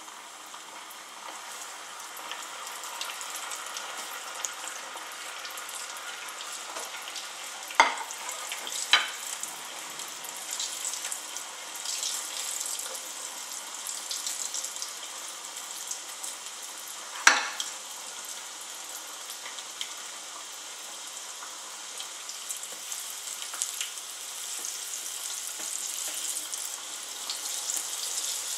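A floured piece of Nile perch deep-frying in hot oil in a small stainless steel saucepan: a steady sizzle full of small crackles. Three sharp cracks stand out, about eight, nine and seventeen seconds in.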